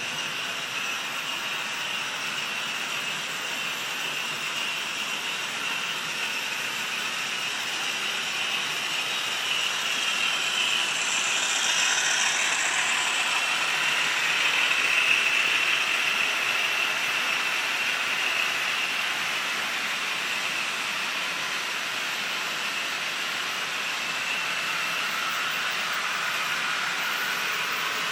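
Sound decoder in a Hornby OO gauge BR Class 50 model diesel locomotive playing its English Electric diesel engine sound through a small on-board speaker, with no deep bass, mixed with the running noise of the model train on the track. It grows louder as the train passes about halfway through, then eases off.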